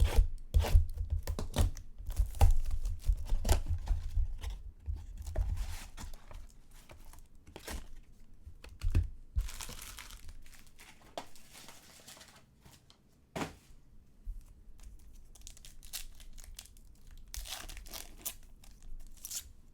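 Packaging of a box of trading cards being torn open and crumpled by hand, with irregular tearing, crinkling and handling knocks. There is a noisy rustle around nine seconds in, a sharp knock a little after thirteen, and a burst of crinkling near the end.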